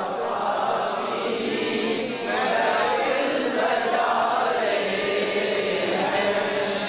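A congregation chanting together in unison, many voices at once.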